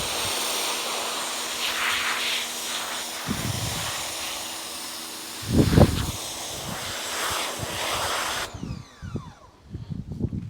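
Steady hiss of a water spray washing road grime and grease off a car mudguard, with a few dull knocks of the part being handled. The spray cuts off suddenly near the end, followed by scattered clicks and knocks.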